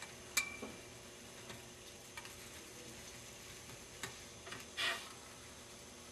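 Foam being pushed across a wooden tabletop through the heated 32-gauge nichrome wire of a homemade hot-wire cutter: mostly quiet, with a sharp click about half a second in, a few faint ticks, and a short hissing rustle near the end.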